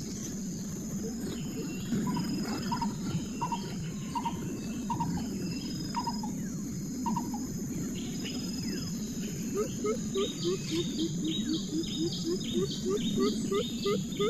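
Outdoor wildlife sounds: a steady high insect drone, with repeated short animal calls over it. The calls become a quick series of about two or three a second from about ten seconds in.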